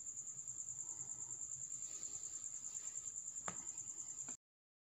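An insect trilling steadily: one high, rapidly pulsing chirp, about ten pulses a second. A single short click about three and a half seconds in, and the sound cuts off suddenly near the end.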